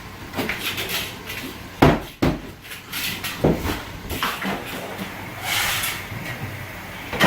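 Wooden cabinetry being knocked about and pulled apart: a series of sharp knocks and bangs, the loudest about two seconds in, with a short scraping rush near six seconds.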